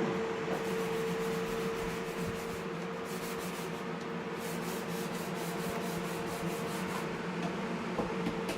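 Sanding: a power sander running with a steady hum while its pad rubs across a surface. In the middle stretch the rasp comes in regular strokes, a few per second.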